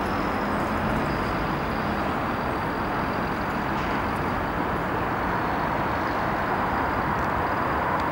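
Steady city traffic noise: an even, continuous rush of road vehicles with no single one standing out.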